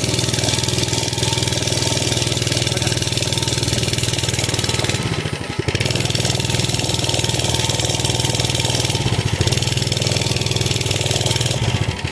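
Mini bike's small engine running steadily while being ridden, with a short dip about five seconds in. The engine note drops off right at the end as the bike slows.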